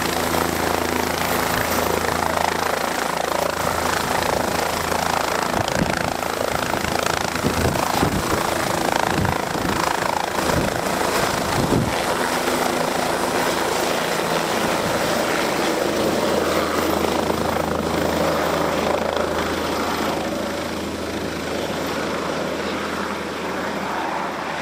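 A helicopter's turbine and rotor running steadily, then lifting off. The low rotor sound turns rough and uneven for several seconds as it rises, then settles back to a steady drone that grows a little quieter near the end.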